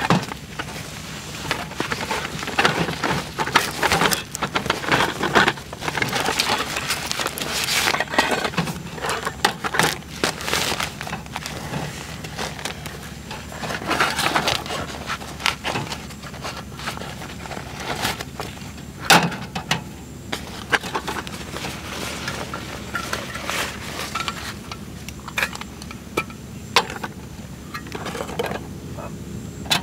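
Camping cookware and gear being unpacked and set out on a camp table: a soft bag rustling, with irregular clicks, clinks and knocks, the loudest a sharp knock about two-thirds of the way through.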